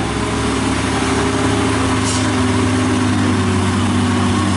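Heavy diesel truck engine running steadily as the truck approaches, its pitch rising slightly and the sound growing a little louder.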